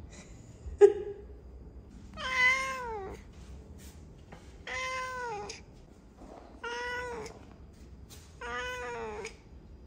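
Domestic cat meowing four times, each meow a drawn-out call that dips in pitch at its end. A short sharp sound comes about a second in.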